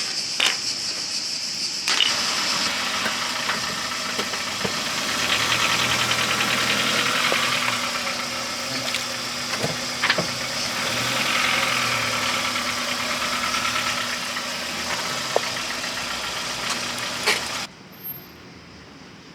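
Car engine running at low speed, with a few sharp clicks over it. Near the end it cuts off suddenly to a faint steady hiss.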